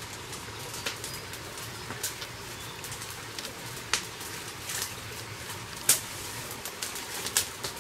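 Open fire of dry brush burning, with irregular sharp crackles and pops over a steady hiss; the loudest pops come about four and six seconds in.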